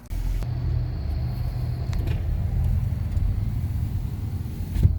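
A car driving, giving a steady low rumble of engine and road noise, with a short thump near the end.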